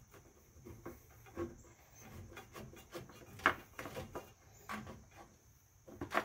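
Faint, irregular clicks and scrapes of a transmission cooler's mounting strap being pushed through the cooler's pad and the radiator fins, with the sharpest click about three and a half seconds in.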